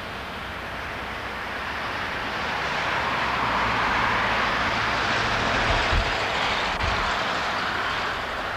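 A vehicle passing by on the road, its rushing noise swelling to a peak about four seconds in and fading away again.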